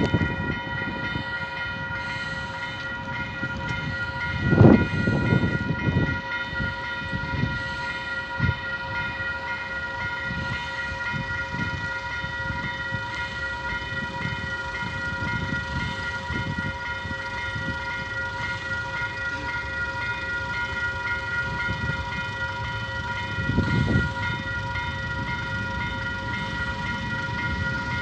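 Railway level-crossing warning bell ringing steadily, about two to three dings a second, signalling an approaching train. A louder low rumble comes about five seconds in and again near the end.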